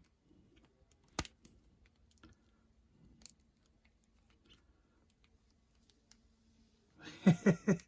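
Light plastic clicks and taps from handling a 6-inch action figure and its accessories, with a sharp click about a second in and another near three seconds.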